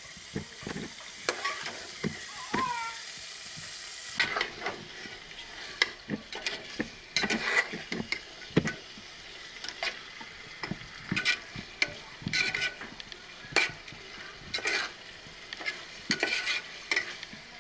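Metal spatula stirring and scraping spiced meat around a metal pot in irregular strokes, over the steady sizzle of the meat frying in oil.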